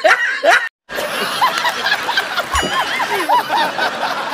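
Laughter: a short stretch of snickering stops under a second in, and after a brief gap a man laughs heartily in quick repeated bursts over a noisy background.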